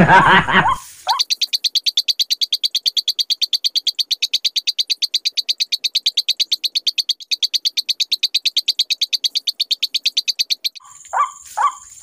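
A loud rustle in the first second. Then a high, rapid chirping call pulses evenly about nine times a second for nearly ten seconds and stops abruptly. Near the end, lower falling calls begin, about two a second.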